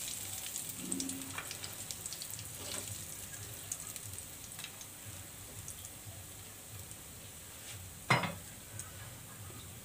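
Oil sizzling around a breaded chicken piece in a karahi as it is turned and lifted out with metal tongs, with light clicks of the tongs against the pan. The sizzle thins as the piece comes out, and one sharp knock sounds near the end.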